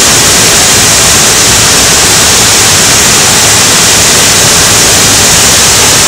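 Chitrakote Falls: a wide, heavy waterfall plunging over a rock ledge, a loud, steady rush of falling water.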